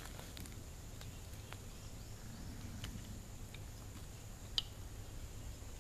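Faint scattered clicks and knocks from handling the Tree Lounge tree stand's frame, the sharpest a little past four and a half seconds in, over a steady high insect drone.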